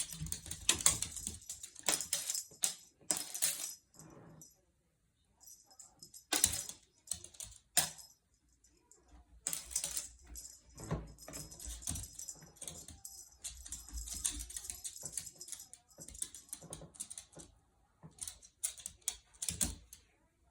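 A cat batting at and chasing a wand toy: an irregular patter of small clicks and rustles. The sounds stop briefly about four seconds in and again around eight seconds in.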